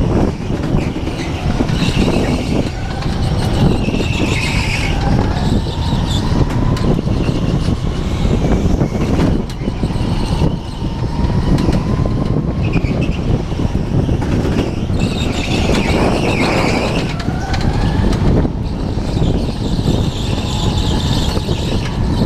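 Go-kart driving laps on an indoor track, heard from on board: a loud, steady rumble with higher whines that rise and fall now and then.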